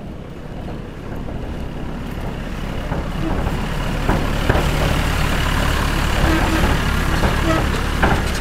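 A heavy machine's engine running steadily, growing louder over the first few seconds, with scattered knocks and clanks.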